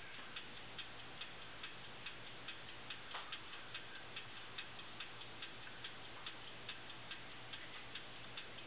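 A clock ticking steadily, a little over two ticks a second, with a faint steady low hum underneath.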